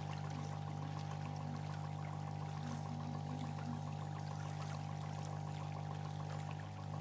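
A steady low hum with an even watery trickling and pouring sound over it, unchanging in level throughout.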